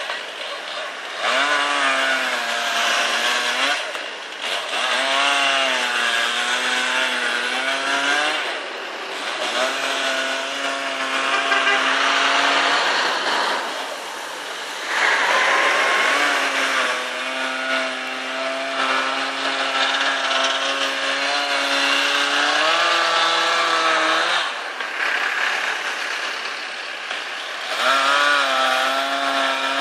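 A chainsaw revving in repeated spells of a few seconds, its pitch rising as the throttle opens at the start of each spell. It holds high for a long stretch in the middle and steps up once more before dropping, which fits saw-cutting through ice.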